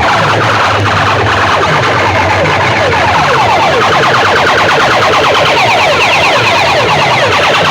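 Loud DJ sound-system playback of an electronic siren effect: quick falling electronic sweeps repeating several times a second over a low pulsing bass.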